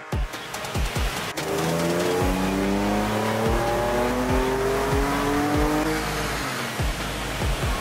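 Next Gen Ford Ranger Raptor's twin-turbo V6 making a full-throttle pull on a chassis dyno. The engine note climbs steadily for about four and a half seconds, then drops away as the pull ends.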